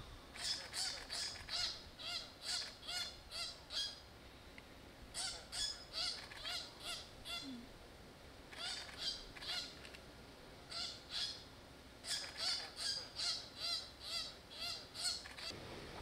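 Fruit bat on the ground giving repeated short, nasal distress calls under attack from a grey-headed bushshrike. Each note rises and falls, about three a second, in several bouts broken by brief pauses.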